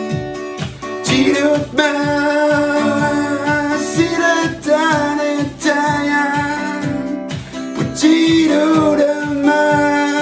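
A man singing a song in Innu, accompanying himself on a strummed acoustic guitar. The guitar keeps a steady strummed rhythm under the sung melody.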